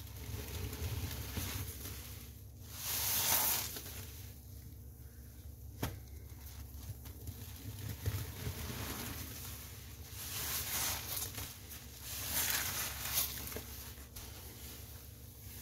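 Soapy sponge being squeezed: wet squelching and crackling foam in three main bursts, with a few sharp clicks between them.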